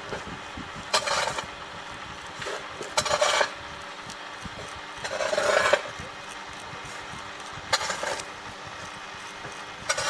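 Straight razor scraping through beard stubble on the cheek as the beard line is shaped: about five short scraping strokes, roughly two seconds apart.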